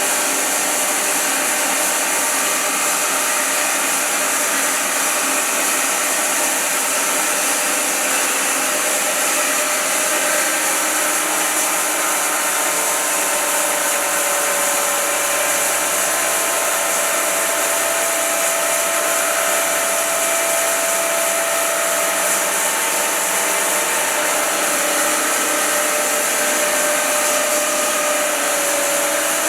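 Wide-cut bandsaw mill running steadily with its blade sawing through a large silver maple round, a constant loud hiss and whine with no breaks.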